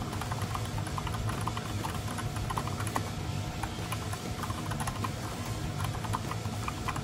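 Typing on a Razer BlackWidow V3 mechanical gaming keyboard: a steady run of quick, irregular key clicks, light and fairly quiet.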